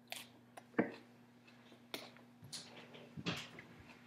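A person chewing a large mouthful of salad: a few scattered soft crunches and mouth smacks over a faint steady hum.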